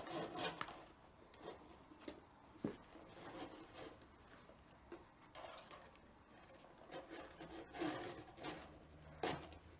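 Leather tabla strap (badhi) rubbing and scraping as it is pulled through the rings and drawn around the drum's wooden shell, in faint scattered strokes with a few soft knocks, louder near the end.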